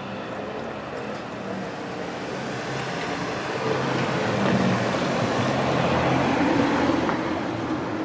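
A minivan drives across the level crossing, its tyre and engine noise swelling to a peak about six seconds in and fading near the end.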